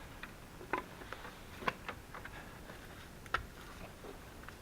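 Plastic cell vent caps being fitted back onto a car battery after its cells were topped up with water: a handful of light, irregular clicks and taps.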